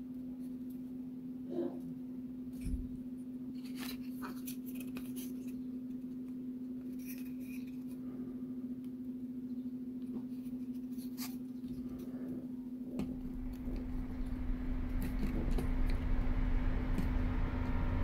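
Light clicks and taps of thin laser-cut wooden model-kit parts being handled and pressed together by hand, over a steady hum. Music fades in over the last few seconds.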